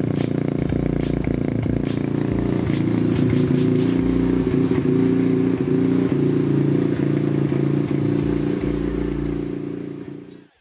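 Skyteam PBR 125's 125 cc single-cylinder four-stroke engine running steadily at a fairly constant speed, fading out near the end.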